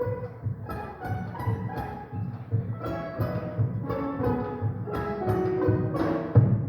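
Ensemble of Andean and Latin American instruments playing live, with pitched melody notes over a steady rhythmic low pulse, growing louder toward the end.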